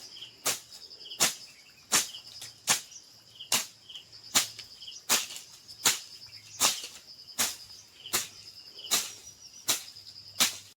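Sharp, even strikes of a sickle cutting through weeds, about one every 0.8 seconds, over the steady chirring of crickets.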